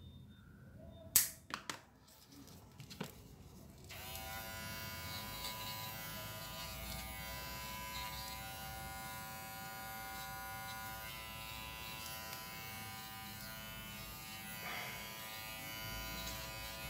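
A few sharp snips of a scissor-type dog nail clipper cutting a poodle's nails in the first three seconds, the first the loudest. Then, about four seconds in, a small cordless Propet pet finishing clipper switches on and runs with a steady buzzing hum.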